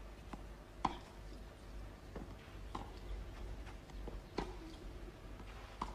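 Tennis rally on a clay court: about five sharp pocks of the ball off the rackets, spaced roughly a second and a half apart, over a faint steady hum.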